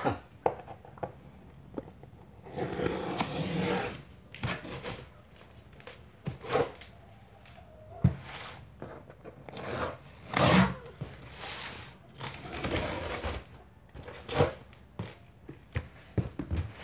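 Packing tape being pulled and torn off a cardboard box by hand, with the cardboard flaps scraped and handled, in irregular ripping and rustling bursts. A longer tearing stretch comes about three seconds in.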